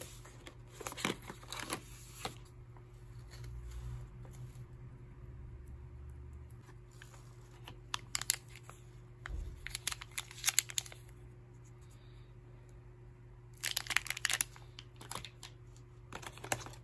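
Plastic packaging crinkling and a cardboard phone box being handled, in several short bursts, as a smartphone and its accessories are unpacked.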